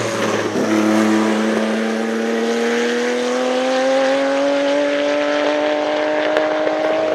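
Porsche 961's 2.9-litre twin-turbo flat-six pulling away under acceleration, its note rising slowly and steadily without a gear change.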